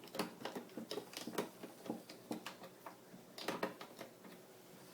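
Light, irregular clicks and taps of a Phillips screwdriver working screws into the back of a plastic cash-register cabinet.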